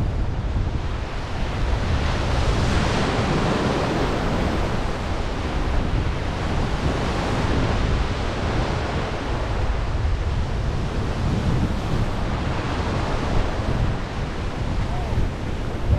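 Small surf waves breaking and washing through the shallows right around the microphone, with wind buffeting the microphone. The wash swells louder about two to four seconds in and again around seven to eight seconds in.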